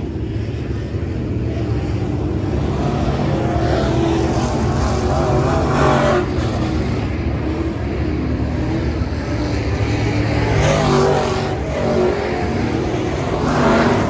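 Several dirt-track race cars' engines running hard around the oval, their pitch rising and falling through the turns. The sound swells as cars pass about six seconds in, again near eleven seconds, and near the end.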